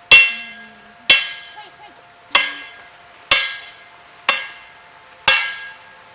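Sharp metal strikes, six at about one a second, each ringing brightly and dying away within half a second.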